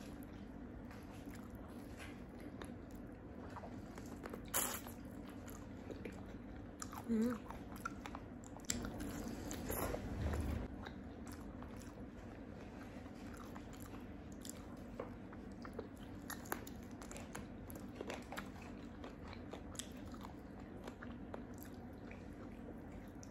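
A person eating crispy fried chicken: biting into the crunchy coating and chewing, with scattered small crunches and clicks. There are louder bites about four and a half, seven and ten seconds in.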